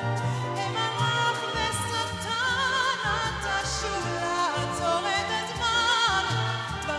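A woman singing with strong vibrato in long held notes, accompanied by a symphony orchestra with strings.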